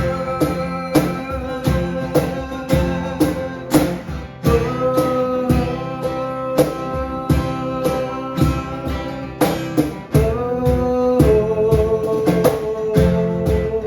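Worship song: a voice holding long sung notes over acoustic guitar, with a steady beat.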